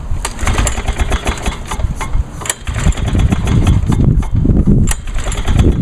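Recoil starter on a 1986 Lawn-Boy 8461 Commercial mower being pulled again and again on full choke, the engine turning over in uneven surges without catching: its fuel valve is shut.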